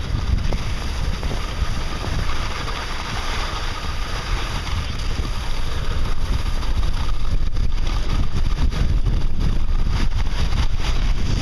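Wind buffeting the microphone during a downhill run on a ski slope, a heavy low rumble, with the hiss and scrape of sliding over coarse, granular snow growing a little louder in the second half.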